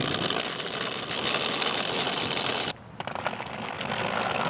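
Wheels of a folding wagon rattling and rumbling as it is pushed over a paved path, with a brief break about three seconds in.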